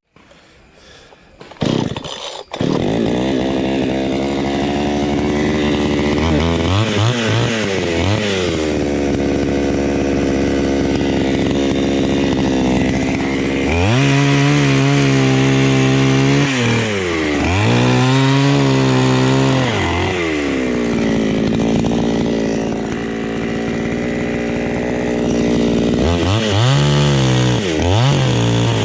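Chainsaw starting up about two seconds in, then running and cutting through a coconut palm trunk, its engine note dipping under load and climbing again several times.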